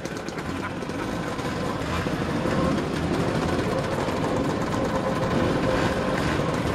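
Many classic Lambretta and Vespa scooter engines running at once, a steady mixed engine drone.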